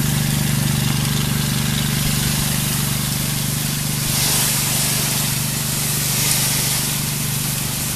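A truck-mounted pressure washer's engine running steadily, with the hiss of its high-pressure water spray on the surface growing stronger about halfway through.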